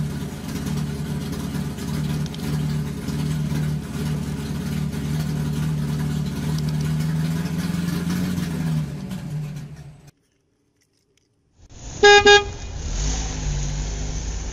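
A vehicle engine runs steadily, then cuts off abruptly about ten seconds in. After a short silence there is one loud, short horn toot, followed by a low rumble.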